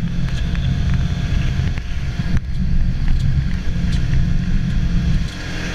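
Side-by-side UTV on the move, heard from inside its open cab: a steady low engine and ride rumble, with wind buffeting the microphone and a few knocks and rattles over the rough ground.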